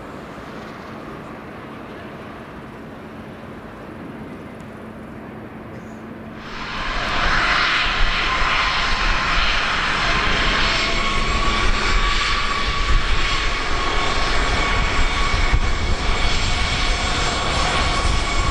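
Jet airliner engines: faint at first, then about six and a half seconds in they quickly grow loud and stay loud, a rumble with a steady high whine over it.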